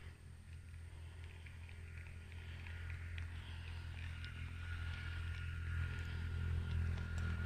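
A motor engine running steadily at a distance, its low hum slowly growing louder, with faint scattered ticks above it.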